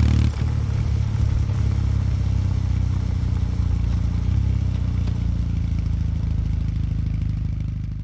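Kawasaki W800 Street's air-cooled parallel-twin engine through its stock exhaust, heard from the bike while riding along. The note dips briefly a moment in, steps up slightly about halfway, then fades out near the end.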